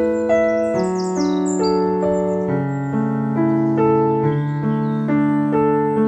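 Background music: a soft piano playing a steady, even pattern of notes, a little over two a second, over held low notes.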